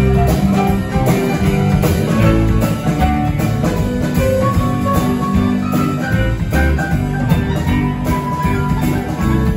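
Live band playing an instrumental passage of a song, with no singing: electric guitar, keyboard, bass guitar and drum kit.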